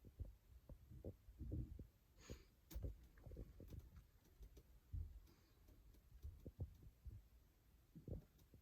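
Faint, irregular low thumps and light knocks from handling, with a couple of brief scraping sounds.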